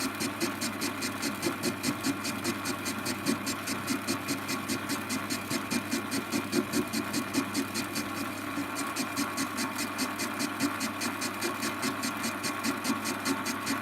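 Warco metal lathe running with its cutting tool hand-fed across an offset workpiece. The motor and gears give a steady hum, under a fast, regular tick from the interrupted cut, as the tool bites on only one side of each turn.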